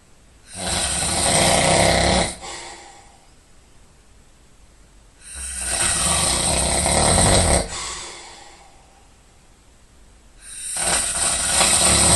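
A person snoring loudly in sleep: three heavy, rasping snores about five seconds apart, each lasting around two seconds and followed by a softer breath.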